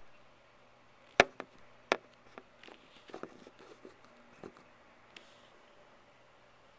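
Handling noise of the recording device: a few sharp knocks and clicks, two loud ones about a second in and just under two seconds in, then a scatter of softer taps that die out about five seconds in.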